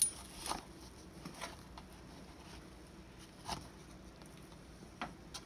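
Scattered light taps and clicks of a spoon and a plastic dropper against cups and the model volcano, about half a dozen in a few seconds with the sharpest about three and a half seconds in, over quiet room tone.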